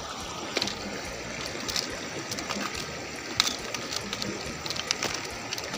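Shallow water sloshing and trickling as someone wades through it, with a few sudden splashes.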